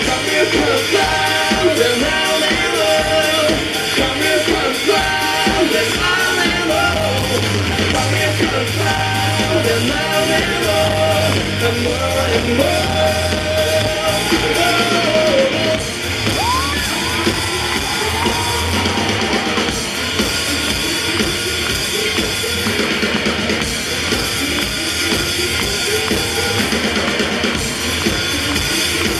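Live rock band playing a stretch without lyrics, with drums, bass and electric guitar at full volume. A high melody line repeats through the first half.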